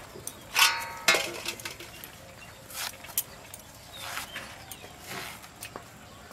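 Young raw pumpkin being sliced against the upright blade of a boti, with a few short crisp cutting sounds. A short, loud animal call comes about half a second in.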